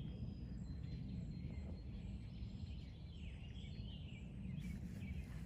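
Outdoor ambience: a steady low background rumble with faint bird chirps scattered through it.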